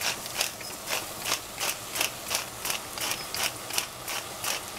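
Hand-twisted pepper mill grinding peppercorns over a pot, a rhythmic ratcheting crunch of about three clicks a second.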